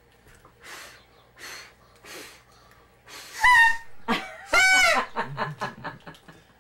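A child puffs air at birthday candles three times, then blows a party blower: two loud reedy honks about three and a half and four and a half seconds in, the second longer, followed by a string of short sputtering bursts.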